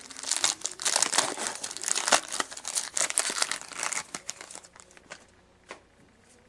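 A trading card pack's wrapper being torn open and crinkled by hand for a few seconds. The crinkling dies away and is followed by a single soft click.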